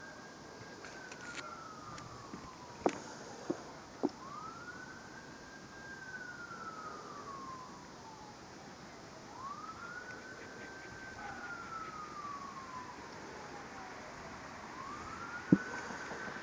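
A siren wailing, each cycle rising quickly in pitch and then falling slowly, repeating about every five seconds. A few sharp clicks come about three to four seconds in, and one louder click comes near the end.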